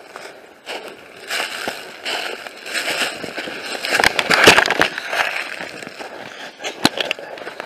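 Footsteps crunching and rustling through dry fallen leaves and twigs, with crackling clicks, loudest about four seconds in as the handheld camera is swung about.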